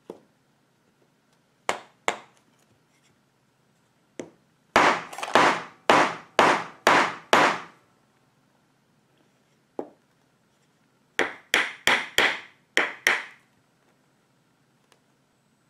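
Hammer tapping a pin down through a knife's wooden handle scales: a few single taps, then two runs of about seven quick blows, the first run the loudest.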